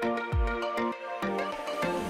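Background music with a steady beat: deep drum strokes under held chords.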